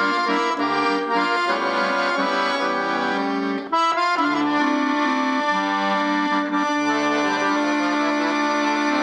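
Piano accordion playing a tune, with a melody over bass notes that come and go. The music breaks off for a moment about four seconds in and then carries on.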